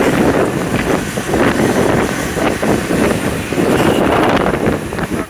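Wind buffeting the microphone on a moving motorcycle, in uneven gusts, with the motorcycle's engine and road noise running underneath.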